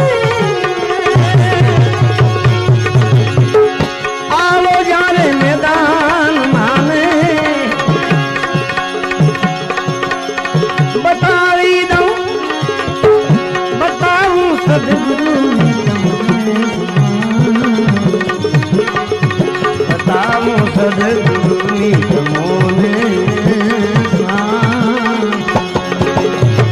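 Instrumental passage of a Gujarati bhajan: tabla keeping a steady rhythm under a wavering melody line over a held drone tone.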